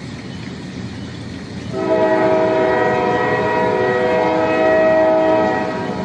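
Train horn sounding one long blast of several tones at once, starting about two seconds in and softening slightly near the end. A moving train rumbles underneath it.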